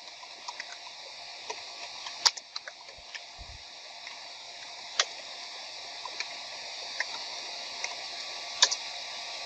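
Computer keyboard keys clicking now and then, about a dozen sharp, irregularly spaced taps over a steady hiss.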